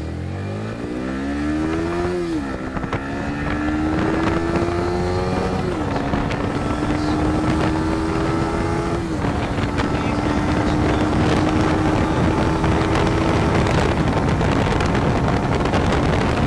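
Yamaha MT15's 155 cc single-cylinder engine accelerating hard at full throttle with rider and pillion aboard, its pitch climbing through each gear and dropping back at four upshifts, each climb taking longer than the last. Wind rushes over the microphone throughout.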